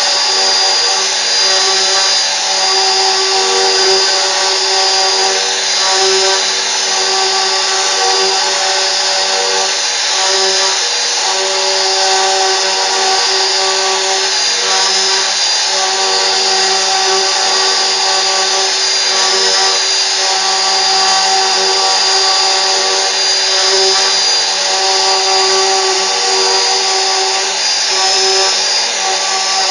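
CNC router running: a steady spindle whine with cutting noise, some of its tones swelling and easing as the cut goes on.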